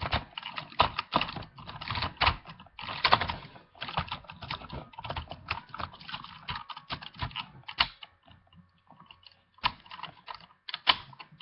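Hard plastic parts of a White Tigerzord toy clicking and clattering as it is handled and its pieces are moved, in quick irregular runs with a short lull near the end.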